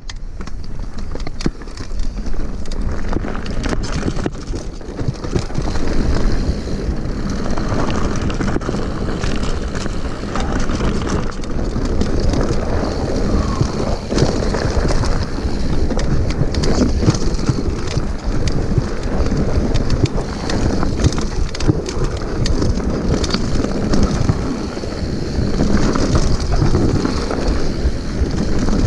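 Mountain bike descending a rocky singletrack at speed: wind buffeting the microphone, tyres crunching over loose stones, and the bike clattering with many short knocks over bumps.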